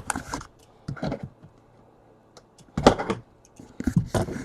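A few scattered short clicks and knocks, the loudest about three seconds in and another small cluster near the end.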